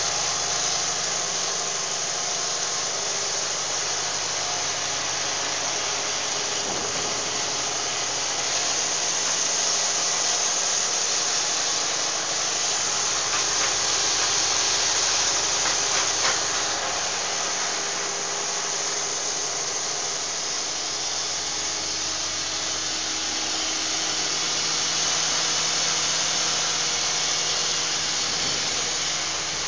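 Biomass gasifier power plant machinery running steadily: a gas engine generator set and electric motor-driven equipment, giving a continuous, even mechanical hum and hiss.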